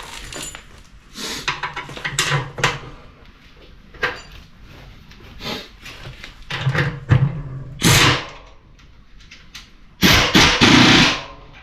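Metal hand tools and hardware clanking and knocking while bell housing bolts and washers are fitted and tightened. The knocks are irregular and scattered, with a loud rasping burst of about a second near the end.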